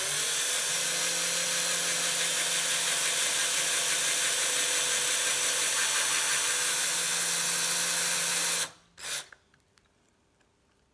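Small, low-powered electric drill spinning up quickly and running at a steady whine for about eight and a half seconds while drilling a hole through a vintage quick-release skewer. It stops suddenly and is followed by one brief second burst.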